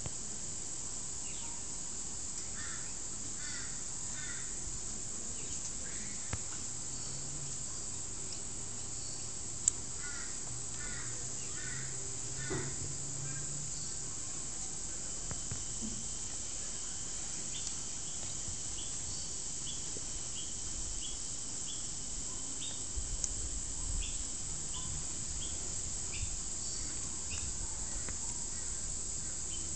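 Faint bird chirps in small clusters over a steady hiss, then a run of short repeated calls, about one or two a second, in the second half. A single sharp click about ten seconds in.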